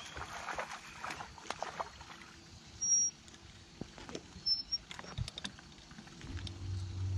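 Scattered clicks and light knocks of fishing tackle and boat deck as a bass is reeled in and lifted aboard, with two short high beeps in the middle. A low steady hum comes in near the end.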